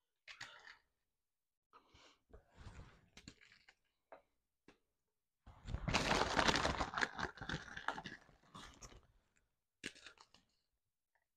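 Crisp gingerbread cookies crunching and crackling in short spells as they are broken up by hand. About halfway through comes a louder, longer stretch of rustling from the plastic cookie bag, then a few small clicks of crumbs near the end.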